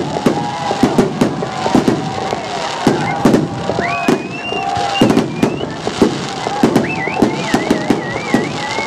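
Fireworks display going off in a rapid barrage, several bangs a second with no let-up. A high whistling tone rises about four seconds in, and another wavers up and down near the end.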